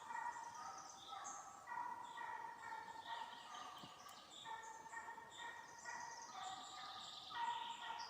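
Russian hound giving voice on the trail: a run of repeated, drawn-out pitched calls, one after another, the sound of the hound in full cry on a hare's track.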